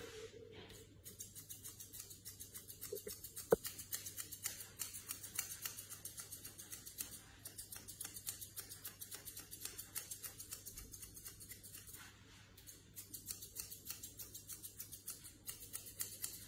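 Grooming scissors snipping a dog's facial hair in quick, even strokes, several a second, with one sharper click about three and a half seconds in and a short break near twelve seconds.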